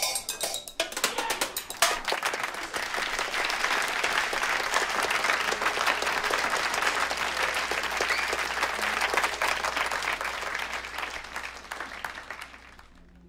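Sticks striking empty glass bottles, plates and a can for the first two seconds or so, then an audience applauding for about ten seconds, fading out near the end.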